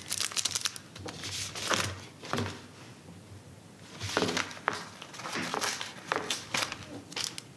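Small self-seal cellophane bag crinkling and rustling in the hands as a pin card is sealed inside and the red release strip is peeled off its adhesive flap, with a quieter pause in the middle.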